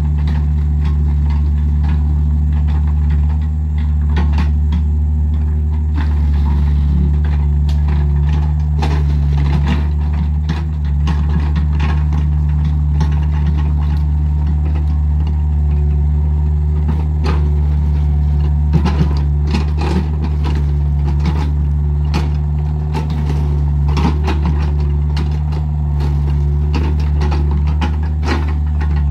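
Heavy diesel engine of a working excavator running steadily, with scattered knocks and clatters from stones being moved while the road is levelled.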